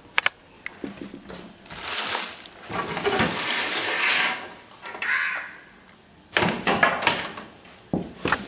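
Rustling and crinkling of keyboard packaging being handled in long swishes, followed by a few sharp clicks and knocks near the end.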